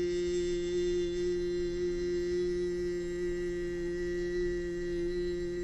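A steady humming tone held at one low pitch with higher ringing overtones, unchanging throughout.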